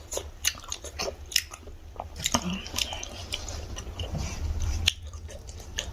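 Close-miked chewing of pork momo dumplings, with many small sharp mouth clicks and smacks.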